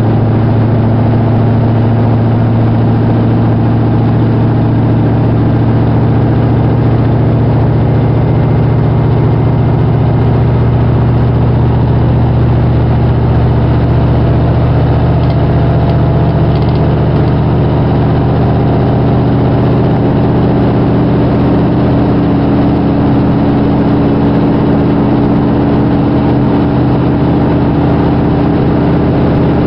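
Trenitalia regional train's diesel engine running steadily under way, a low drone heard from inside the passenger car, over the even rolling noise of the train.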